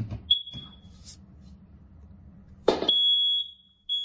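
Kidde combination smoke and carbon monoxide alarm under test. It gives a short high beep, then about three seconds in its loud, high-pitched alarm tone starts, sounding in long beeps with short gaps.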